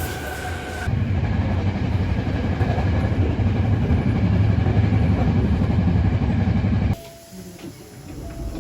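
Train running on the rails, a loud, steady low rumble, with a thin steady whine over it for the first second. About seven seconds in it cuts off abruptly to a much quieter stretch with a few short faint tones and clicks.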